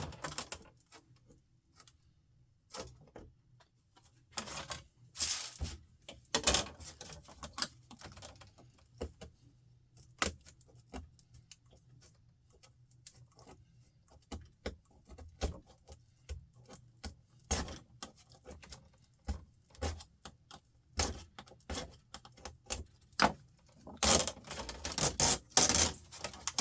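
Irregular clicks, taps and clatter of small plastic and metal laptop parts being handled and pulled apart during a teardown, with a denser run of clatter near the end.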